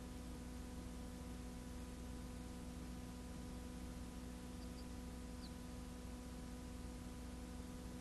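Steady electrical hum with an even hiss, no music or other sound.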